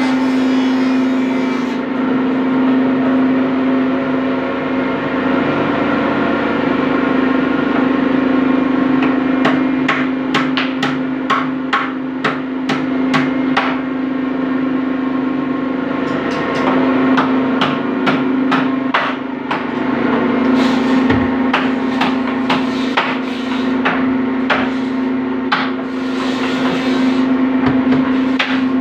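Hammer blows in a workshop: a run of strikes about twice a second, then more irregular ones, over a steady hum.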